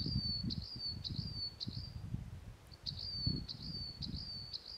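A bird chirping: quick runs of repeated high notes, each sliding down and then holding briefly, with a short break in the middle. An uneven low rumble runs underneath.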